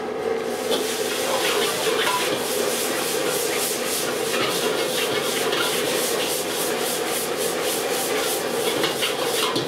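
Fried rice being stir-fried in a wok over a high gas flame: the ladle scrapes and stirs against the wok about three or four times a second over the steady rush of the wok burner.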